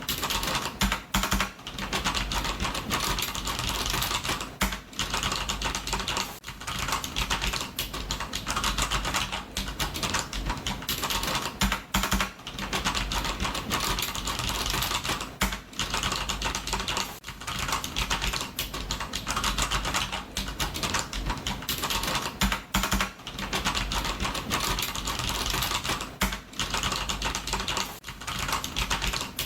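Computer keyboard being typed on fast and continuously: a dense run of key clicks with brief pauses every few seconds.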